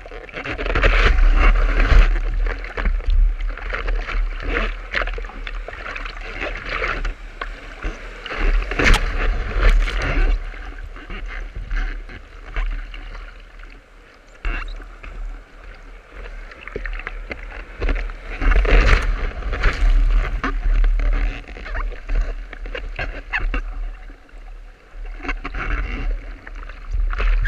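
Surf washing around and splashing against a surfboard, heard up close from a camera on the board, swelling loud every few seconds as broken waves pass, over a steady deep rumble.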